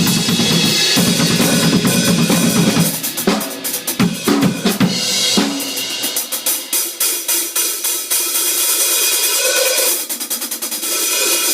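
Yamaha Stage Custom drum kit being played: busy drum and bass-drum hits for about the first five seconds, then quick cymbal and hi-hat strokes with the low drums dropping out.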